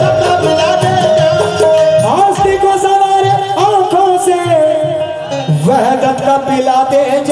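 Qawwali music: harmonium and tabla accompany a lead singer who holds long notes that slide up and down between them, with no clear words.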